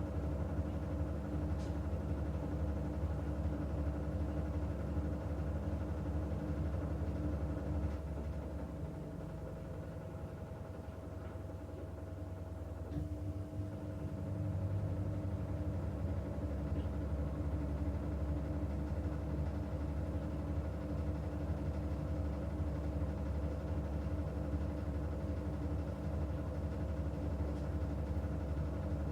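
Washing machine running with a steady low motor hum; the hum drops off about eight seconds in and picks up again around thirteen seconds.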